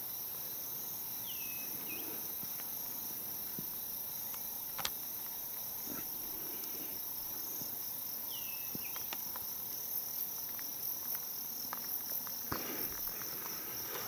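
Steady, high-pitched chorus of rainforest insects, with a few short falling chirps and some light clicks and rustles in the second half.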